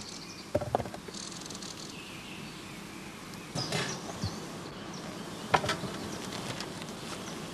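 Honeybees buzzing around open hives, a steady hum, with a few sharp knocks from hive equipment being handled, about half a second, three and a half and five and a half seconds in.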